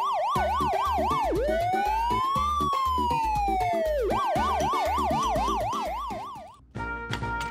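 Police siren sound effect: a fast up-and-down yelp, then one slow rise-and-fall wail, then the fast yelp again, fading out about six seconds in. A steady low beat of background music runs underneath.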